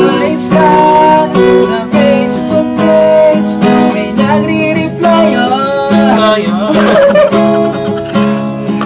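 Acoustic guitar strummed steadily while a man sings a song in Filipino.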